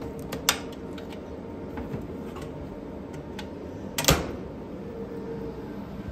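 Key-locked shoe locker clicking and clacking as it is worked: a sharp click about half a second in and a louder clack about four seconds in.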